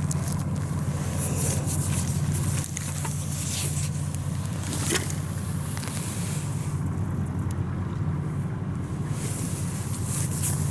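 A steady low engine hum runs throughout, with a few faint clicks and one sharper click about five seconds in.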